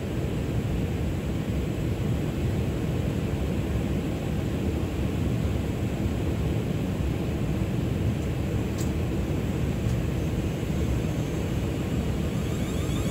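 Class 450 Desiro electric multiple unit standing at the platform, its onboard equipment giving a steady low hum and rush. Near the end a rapid warbling electronic beeping starts.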